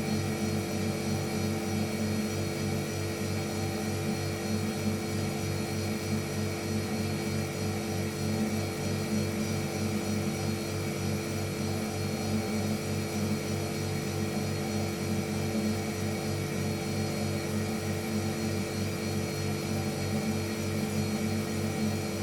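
Household refrigerator's compressor running with a steady, unchanging electric hum, several low tones over a faint hiss.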